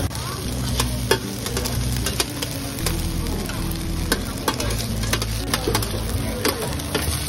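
Cubes of rice flour cake sizzling in oil on a flat griddle, with a metal spatula and ladle scraping and clinking against the griddle as they are tossed. Sharp clicks come every fraction of a second over the steady sizzle, with a low hum underneath.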